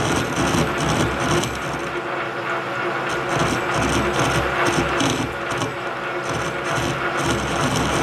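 Lathe turning a welded shaft slowly, at about 133 RPM, while a high-speed steel radius tool bit takes a light, dry interrupted cut across the tops of the weld beads. It is only skimming off the high spots.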